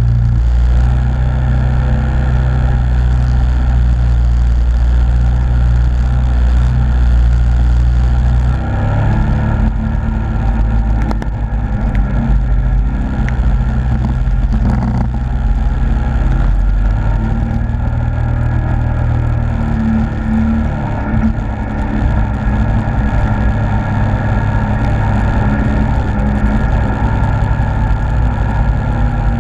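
Yamaha Grizzly ATV engine running under way, steady for the first several seconds. About eight seconds in its note shifts and turns rougher as the wheels churn through mud and water.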